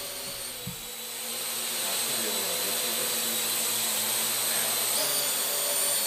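Parrot AR.Drone 2.0 quadcopter's four propellers whirring as it hovers and manoeuvres, a steady whine that wavers slightly in pitch. It grows louder about a second in.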